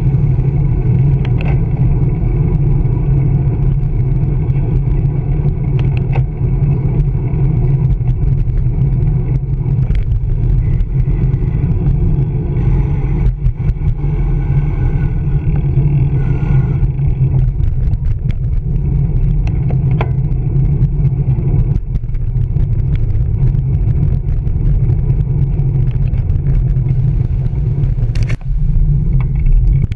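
Steady low rumble of wind and road noise on a camera mounted on a moving bicycle's handlebars, with scattered short clicks and knocks.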